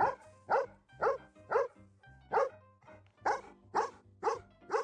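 A dog barking over and over, about two barks a second, in a steady run of short barks.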